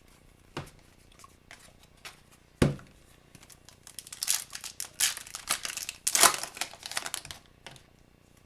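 Foil wrapper of a hockey card pack crinkling and tearing as it is opened, for a few seconds in the second half. Before it, two sharp knocks, the second one loud, like cards or a pack being put down on a table.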